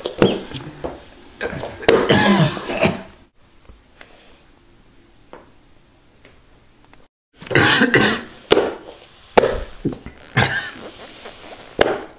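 A person coughing and clearing his throat in several rough fits. A quiet stretch of a few seconds falls in the middle.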